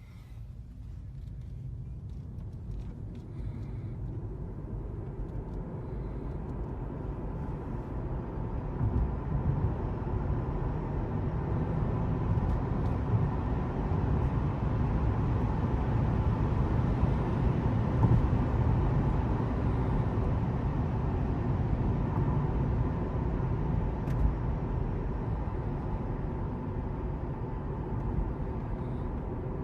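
Road and wind noise from a Tesla Model 3 driving with roof cross bars fitted: a low, steady rumble that grows louder over the first twenty seconds or so, then eases slightly.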